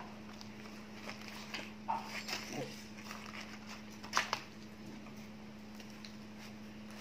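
Plastic spoons and forks clicking and scraping against cardboard food boxes, with paper wrappers rustling, and a couple of sharp clicks about four seconds in. A steady hum runs underneath.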